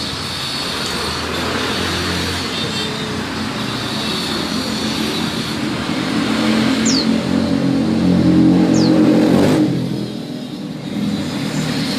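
Suzuki Satria FU motorcycle engine with a modified copy camshaft, running and revved harder from about halfway, then dropping off sharply about two seconds before the end.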